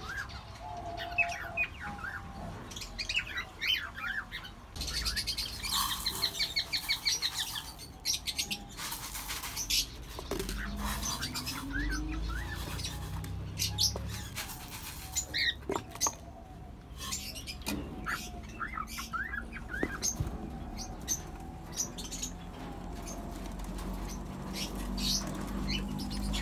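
Aviary birds chirping and calling with many short high chirps, and a couple of brief rustling bursts a few seconds in.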